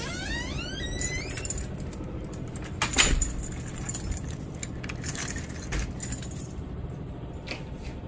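A bunch of keys on a ring jangling while a key is worked in a double-cylinder deadbolt, with sharp clicks and a loud knock about three seconds in.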